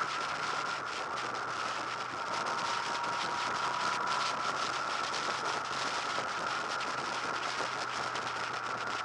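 Wind rushing and crackling over a motorcycle-mounted camera's microphone, with the steady drone of a Honda VFR800 VTEC's V4 engine underneath as the bike rides along.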